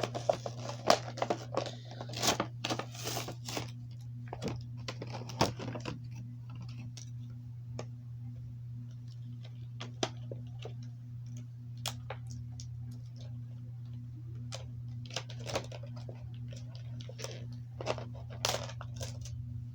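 Plastic blister packaging and cardboard backing card crinkling and tearing as a carded action figure is opened, dense for the first few seconds and then thinning to scattered clicks and taps of plastic. A steady low hum runs underneath.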